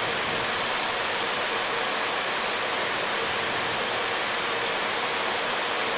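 Steady rushing noise on the flight deck of a Boeing 737 on final approach with landing gear down and flaps at 40: a constant, even hiss of airflow and engines with no distinct events.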